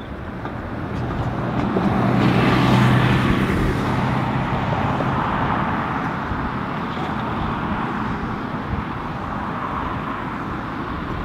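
Twin-engine jet airliner passing low over the runway with its engines at go-around thrust. The sound builds over the first three seconds with a low steady hum, then holds as a steady rush.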